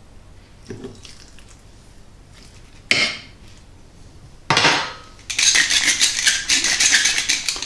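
A fork scrapes lightly on a ceramic plate and is set down on the worktop with a sharp clink about three seconds in. From about four and a half seconds a hand-twisted salt mill grinds sea salt, a dense run of rapid clicking that stops near the end.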